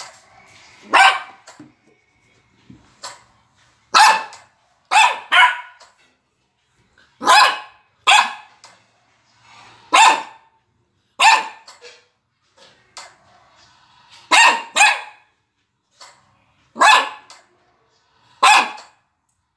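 Maltese puppy barking in short barks, about a dozen, sometimes two in quick succession, one to three seconds apart.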